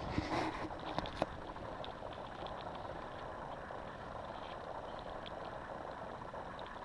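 Water splashing and a few sharp knocks in the first second or so as a paddler gets to his feet on a stand-up paddleboard, then a steady hiss.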